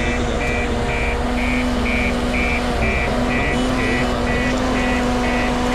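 A vehicle's reversing alarm beeping about twice a second, over a steady engine hum.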